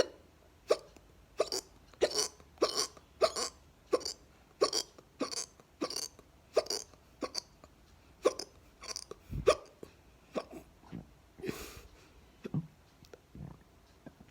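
A woman hiccuping over and over at a steady rate, about three short, sharp hiccups every two seconds. Near the end she takes one longer breath, and the last few hiccups come more slowly.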